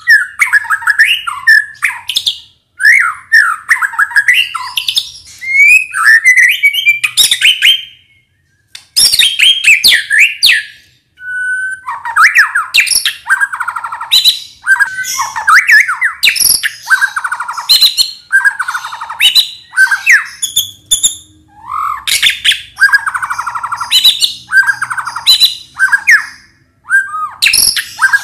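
White-rumped shama (murai batu) singing a loud, varied song of whistled phrases and quick trills, phrase after phrase with short pauses and a brief silence about eight seconds in.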